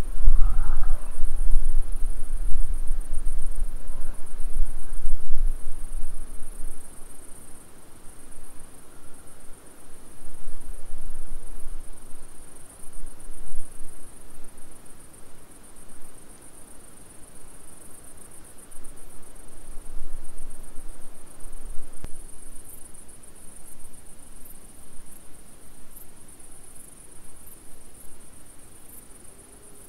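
Crickets singing: a continuous high-pitched trilling. A low rumble underneath is loudest in the first several seconds and then comes and goes.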